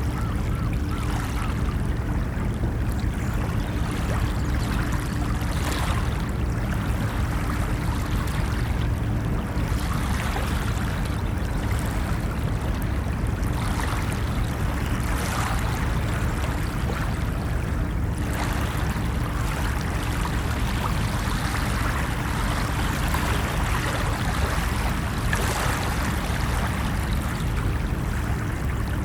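Ocean surf on a beach: a steady low rumble of waves with the hiss of water washing in swelling every few seconds, over a faint steady low hum.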